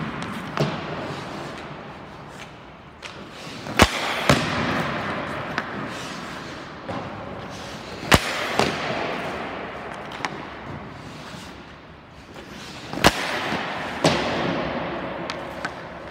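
Ice hockey pucks shot off a stick on rink ice: three hard, sharp cracks about four to five seconds apart. Each is followed shortly after by a duller knock as the puck strikes the goalie or the net, and each echoes in the rink.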